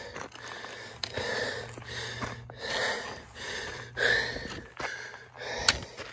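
A hiker breathing hard, about one heavy breath a second, from the effort of climbing a steep trail. Two sharp clicks from steps on the loose gravel come through, the louder one near the end.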